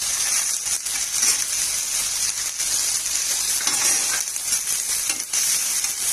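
Chopped onions sizzling steadily in hot oil in a pan, with a few brief scrapes as they are stirred.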